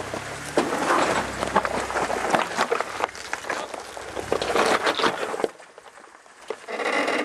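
Jeep Wrangler JK crawling over rock, its engine running low under tyres crunching and grinding on rock and gravel. The engine and most of the crunching drop away about five and a half seconds in, and a short burst of crunching comes back near the end.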